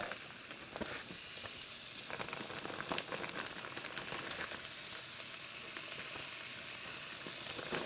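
Flour-coated beef stew meat sizzling as it browns in a hot 12-inch non-stick ceramic frying pan: a steady hiss with a few faint clicks.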